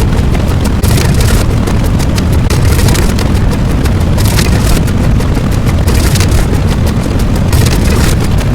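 Loud, distorted booming rumble with dense crackling, a blast-like sound effect with no clear pitch or rhythm.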